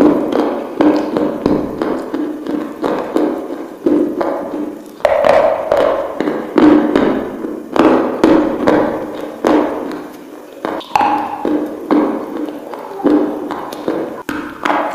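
Close-up crunching as a person bites and chews dry white chunks: a rapid, continuous run of sharp cracks and crumbles, easing off briefly between bites.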